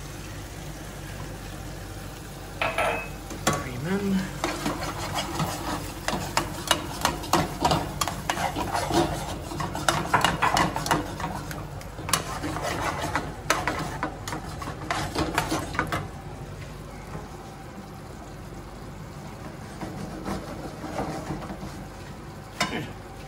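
Pasta in a cream sauce being stirred and tossed with metal tongs in a frying pan: rapid clicks and scrapes of the tongs against the pan over a steady sizzle. The clatter is busiest for most of the first two-thirds and thins out near the end.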